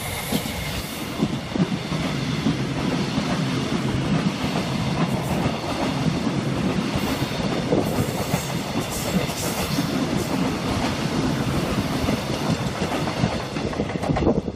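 Korail class 311000 commuter electric train passing close by, a steady loud rush of wheel and rail noise with rapid irregular clacks as its cars go over the track.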